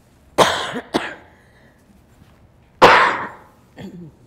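A person coughing close to the microphone: a double cough about half a second in, a second hard cough a couple of seconds later, and a smaller one near the end.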